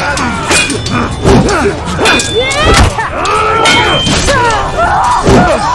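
Staged sword fight: repeated hits and clashes of blades, some ringing briefly, mixed with men's shouts and grunts, over a dramatic music score.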